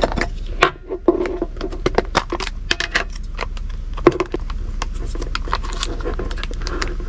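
Plastic tub of gochujang being opened by hand: a quick run of sharp clicks and crackles as the plastic lid comes off and the film seal is peeled back, thinning out after about five seconds, over a steady low hum.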